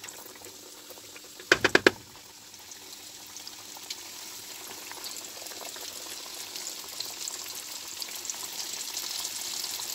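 Flour-coated chicken pieces sizzling and crackling as they deep-fry in hot oil in a wok, the frying growing louder as more pieces go in. About one and a half seconds in, a quick run of sharp clicks.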